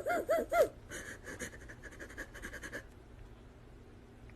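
Rapid, high-pitched panting calls, about four a second, that break off under a second in and give way to fainter breathy panting, which stops about three seconds in.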